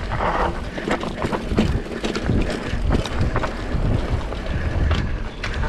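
Mountain bike running down a dry dirt trail: a rough rumble of tyres on the ground with the bike clattering over many small bumps, and wind on the microphone.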